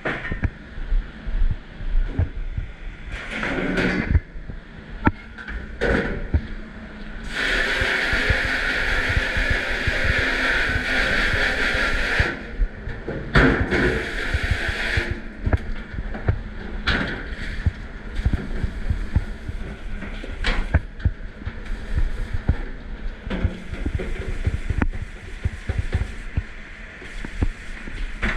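Water spraying hard in a commercial dish pit: one long hissing spray of about five seconds, then a shorter one, amid steady clatter of dishes and trays knocking together.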